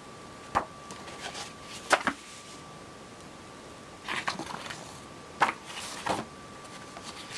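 Cardboard box and large paper sheets being handled: a few sharp taps and knocks with short rustles of paper sliding between them.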